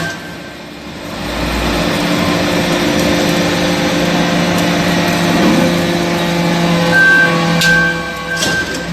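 Hydraulic metal-chip baler running: a steady motor and pump hum, with a few sharp clicks near the end.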